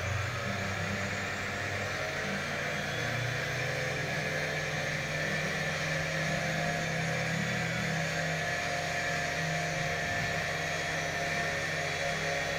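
Quadcopter motors with propellers running steadily at around half throttle: an even whirring hum whose low tones waver slightly.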